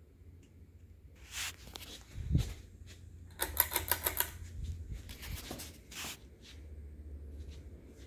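Pull-chain speed switch on a Hunter Silent Breeze ceiling fan being handled and pulled: scattered clicks and, about three and a half seconds in, a quick rattling run of clicks. A low steady hum from the fan motor runs underneath.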